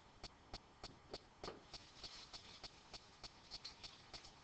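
Near silence: faint short clicks or taps, about three a second, over quiet room tone.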